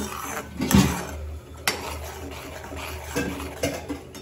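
Metal slotted spoon stirring thick tomato sauce in a metal pan, scraping and clinking against its sides and bottom in a string of sharp knocks, the loudest just under a second in, over a steady low hum.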